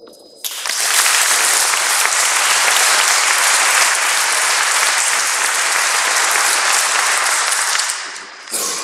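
Audience applauding steadily, starting about half a second in and dying away near the end.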